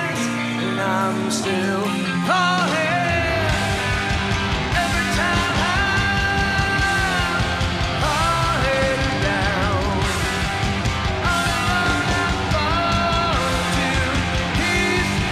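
Live rock band playing a slow song: a singing voice over electric guitar, with bass and drums filling in about three seconds in.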